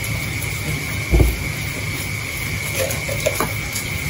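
Hands picking through a pile of wet leaves and catch on a concrete floor: faint rustles and small clicks, with one thump about a second in, over a steady low hum and a steady high tone.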